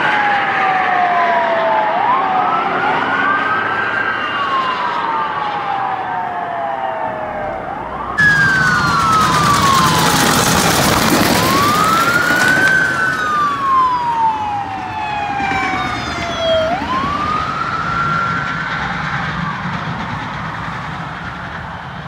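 Several police car sirens wailing together, their pitch sweeping up and down and overlapping. About eight seconds in, loud engine and tyre noise rises under them as a box van and a police SUV with siren pass close by. The sirens then fade as the vehicles move away.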